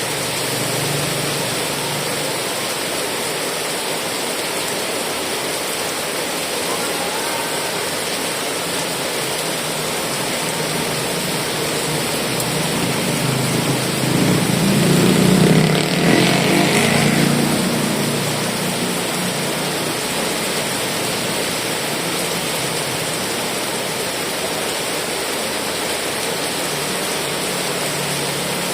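Steady heavy rain, an even hiss. About halfway through, a louder, lower swell builds and fades over several seconds.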